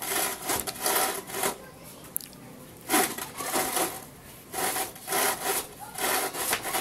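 Rhythmic back-and-forth scraping strokes of a hand tool, about two a second, in three bouts separated by short pauses.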